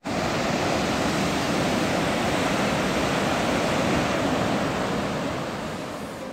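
Fast mountain river rushing over boulders in white-water rapids: a steady rush of water that fades down over the last second or so.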